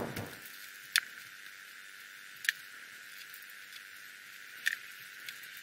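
A few scattered, sharp metallic clicks of hand tools, a wrench and a feeler gauge tapping against the rocker arms while the valve lash is set on a Datsun L-series overhead-cam head, over a faint steady hiss.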